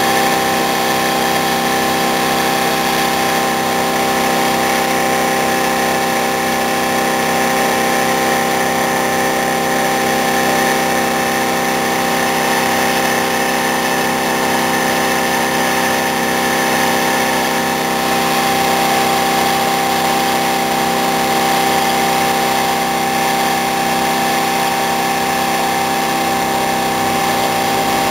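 Homemade iron-core axial-flux pulse motor running at a steady speed, giving a continuous electrical whine made of several held tones over a hiss.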